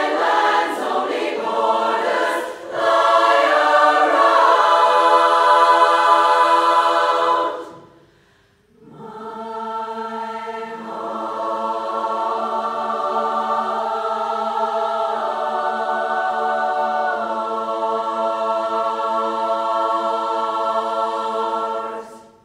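Large women's barbershop chorus singing an anthem a cappella in close harmony. A loud passage breaks off about eight seconds in, and after a short pause the chorus comes back softer and holds one long sustained chord that cuts off near the end.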